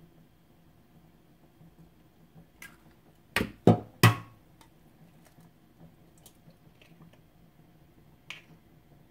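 An egg being cracked with three sharp taps in quick succession on a hard edge, while eggs are separated into yolks and whites. Faint clicks of eggshell handling come before and after the taps.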